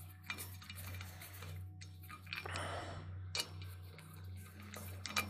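Ratchet wrench with a 10 mm socket clicking in short, irregular runs as a bolt is backed out of the supercharger housing, over a steady low hum.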